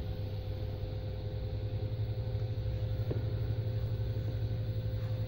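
Steady low hum of a heating system's running circulating pumps, with a faint click about three seconds in.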